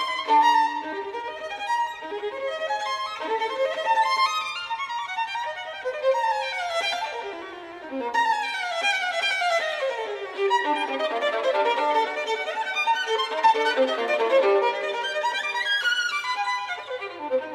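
Music: a solo violin playing fast runs of notes, several sweeping down the scale.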